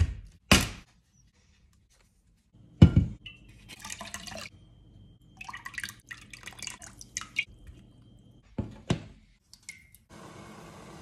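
A few heavy thumps as an artichoke is handled on a wooden worktop, then water splashing and dripping off artichokes being rinsed over a stainless steel bowl, with two more thumps. Near the end comes a steady rush of water pouring into a steel pot.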